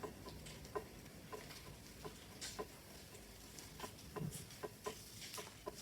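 Faint, irregular small clicks and taps, a dozen or more spread unevenly through a quiet pause.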